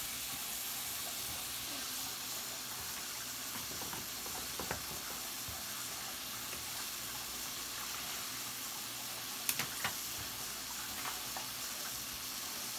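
Shrimp sizzling in a pot of spicy butter sauce, cooking until they turn pink: a steady hiss, with a few light clicks about a third of the way in and again later.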